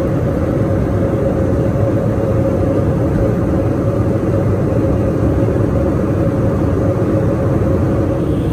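Steady cabin noise of an airliner in flight: an even low rumble of engines and rushing air, with a steady hum in it.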